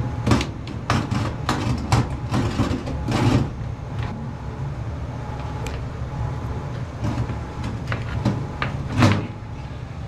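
A pleated furnace filter being slid out of the furnace's filter slot: a run of scraping and knocking of the filter frame against the metal slot in the first few seconds, then a few more knocks near the end, over a steady low hum.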